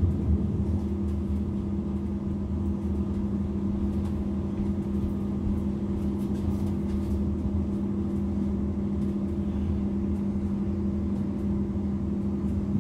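Class 444 Desiro electric multiple unit heard from inside the carriage as it runs slowly along a platform: a steady electrical hum over a low rumble of the wheels on the track.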